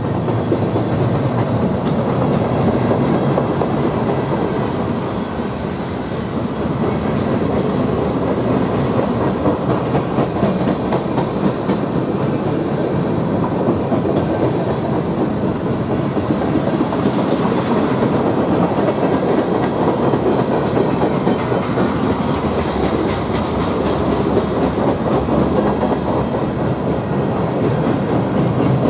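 Freight train cars rolling past at speed close by: a steady, loud rumble and clatter of steel wheels on the rails.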